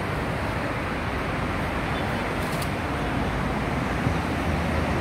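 Steady rumble and hiss of road traffic in the background, with one small knock about four seconds in.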